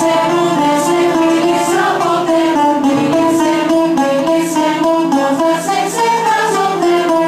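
Cretan folk tune played on a Cretan laouto and a violin: the laouto strums a steady rhythm under a note it keeps sounding, while the violin carries the melody.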